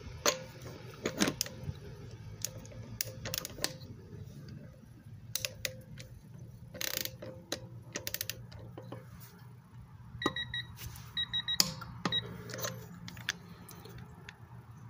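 A Craftsman 3/8-inch click-type torque wrench, set to 50 ft-lb, pulled on a wheel lug nut through a digital torque adapter, giving a string of sharp metallic clicks as it releases at its setting. Short electronic beeps from the digital torque adapter come in a cluster about ten to twelve seconds in.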